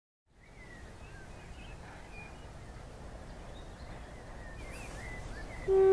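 Birds chirping over a low rumble that slowly grows louder. Near the end, the horn of Clayton Class 17 diesel locomotive D8568 starts to sound, a loud steady note that is by far the loudest thing.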